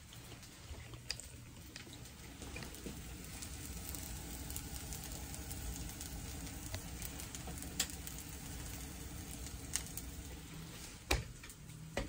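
Mashed potato sizzling in a hot cast-iron skillet, the sizzle building over the first few seconds. A few sharp clicks sound over it, the loudest near the end.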